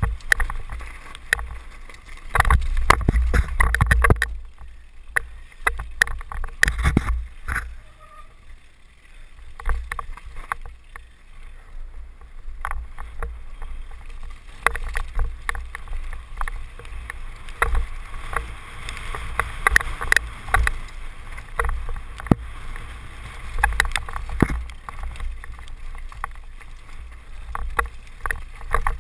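Downhill mountain bike riding fast over a rocky trail: wind buffeting the helmet camera's microphone, with a constant clatter of clicks and knocks from the tyres striking stones and the bike rattling over bumps. The clatter eases for a few seconds about eight seconds in, then picks up again.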